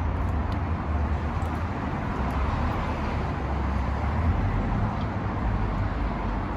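Steady road traffic noise: car traffic passing, an even low rumble with hiss above it.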